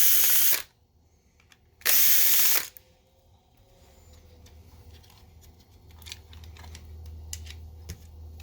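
Cordless electric screwdriver run twice in short bursts, each under a second, about two seconds apart, driving screws on a projector chassis. Small clicks of handling the parts follow.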